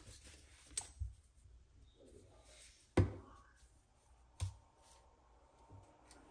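Light clicks and knocks of small objects being handled and set down on a tabletop, four or so spread over several seconds, the sharpest about three seconds in, over quiet room tone.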